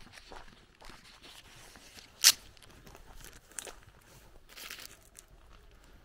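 Footsteps crunching on a dirt road, with one sharp, much louder crack about two seconds in.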